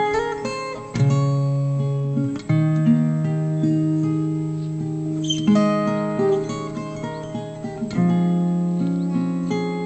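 Background music on acoustic guitar: plucked chords ringing out, with a new chord struck every couple of seconds.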